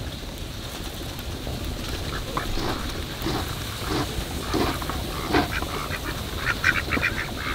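Domestic ducks quacking now and then, with a quick run of short quacks near the end.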